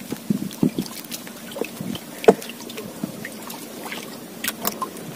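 Water lapping and sloshing against the hull of a small wooden outrigger canoe, with scattered small splashes and knocks, the sharpest about two seconds in.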